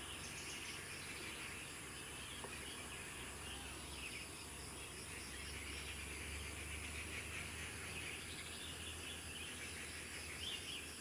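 Outdoor woodland ambience: many small birds and insects chirping together in a dense, continuous chatter over a steady low hum.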